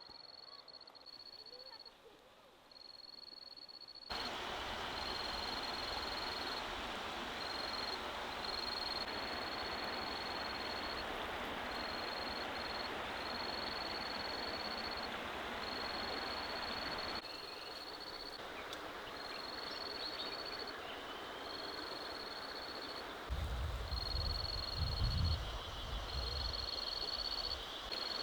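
Outdoor ambience: an insect trills at a high pitch in repeated pulses of about a second with short gaps, over a steady rushing noise that comes in about four seconds in. A low rumble rises near the end.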